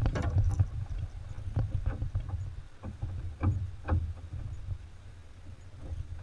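Kayak being paddled with a double-bladed paddle: blades dipping and pulling through the water with a series of short splashes and drips, the loudest near the start and twice more a few seconds in, over a steady low rumble.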